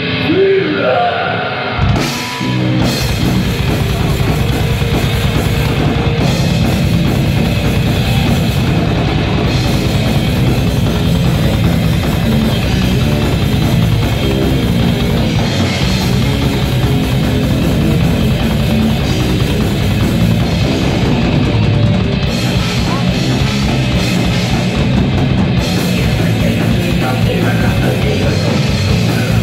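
Live rock band playing loud: drum kit and electric guitars. The full band comes in about two seconds in and keeps a dense, steady wall of sound.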